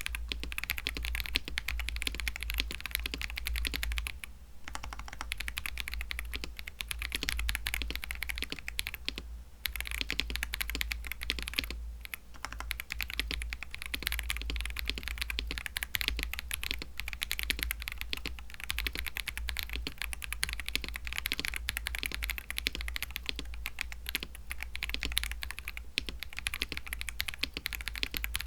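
Fast, continuous typing on a mechanical keyboard fitted with stock, unlubricated Akko CS switches (KTT-made), a dense run of key clacks with brief pauses three times.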